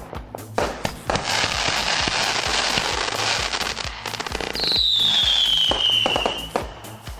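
A 33-shot, 500-gram consumer firework cake firing: sharp shot reports, then a dense hissing crackle for about three seconds. A high tone slides downward near the middle. Background music with a steady beat plays underneath.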